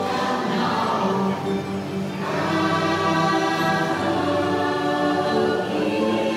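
Ride soundtrack of a choir singing long, slowly changing held notes over music.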